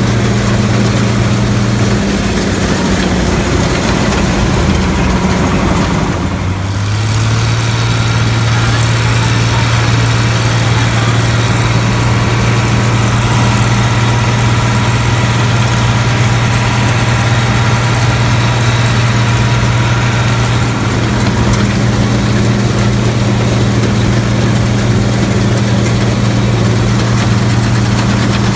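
Laverda 3600 combine harvester running while it works the field, its engine and machinery, including the fitted straw chopper, making a loud, steady drone. The engine note wavers and dips briefly about six seconds in, then settles and holds steady.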